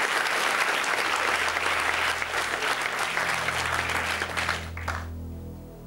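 Studio audience applauding, the clapping dying away about five seconds in, with a low steady drone underneath.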